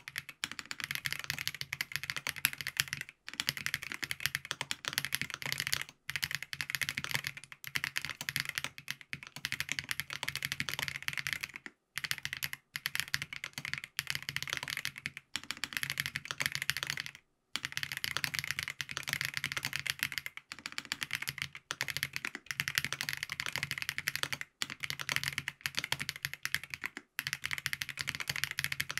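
FancyTech Origin 65A mechanical keyboard with Krytox-lubed Geon Black switches, a gasket-mounted POM plate, foam dampening and ABS keycaps, typed on fast and continuously. The key presses blur into a dense run of clicks and clacks, broken by a few brief pauses.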